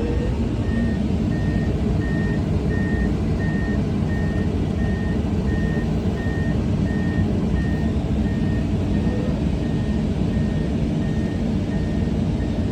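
Komatsu PC210 excavator's travel alarm beeping steadily, about three beeps every two seconds and fainter in the second half, over the steady rumble of its diesel engine as the machine tracks down off the trailer ramp.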